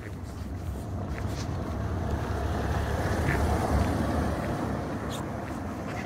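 A car passing by on the road, its noise swelling to a peak about four seconds in and then fading.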